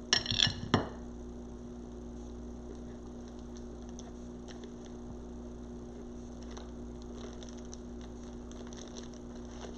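Steady low electrical hum, with a couple of sharp handling noises in the first second and faint scattered ticks and rustles of hands working craft materials.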